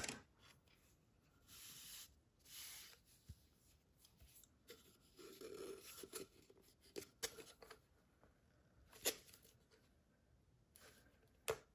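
Faint packaging-handling noises: soft rustling and sliding with a few light clicks and taps, as hands work a plastic pen tube, its screw cap and a velvet pen pouch.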